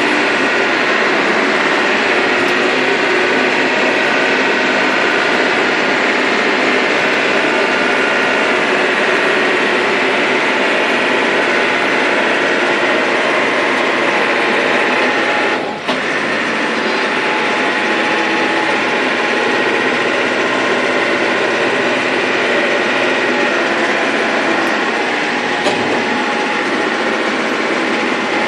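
Cat 416C IT backhoe loader's diesel engine running steadily under load, with a brief dip about halfway through.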